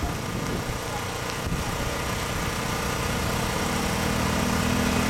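An engine running steadily under a wash of outdoor noise, with a steady hum that comes in and strengthens about three and a half seconds in.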